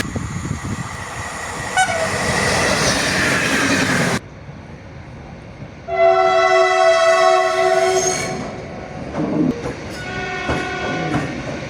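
Clips of passing trains cut together: rumbling train noise that cuts off abruptly about four seconds in. Then a loud multi-tone train horn chord held for about two seconds, followed near the end by a second, quieter horn blast over the train's running noise.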